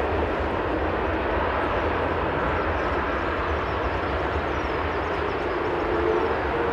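Rolls-Royce Trent 1000 jet engines of a Boeing 787-9 taxiing at low thrust: a steady rushing noise over a low rumble.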